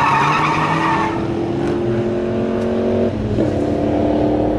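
Muscle car accelerating hard down a drag strip: a tire squeal fades out in the first second while the engine pulls, its pitch climbing steadily. About three seconds in the pitch drops at an upshift and then climbs again.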